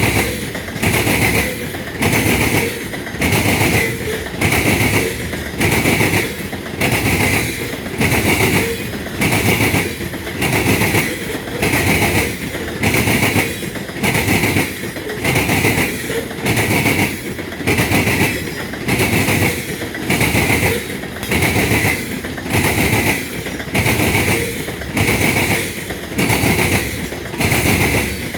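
Loaded coal hopper cars of a freight train rolling past. Their wheels clack and rumble in a regular beat of about one pulse a second as each car goes by.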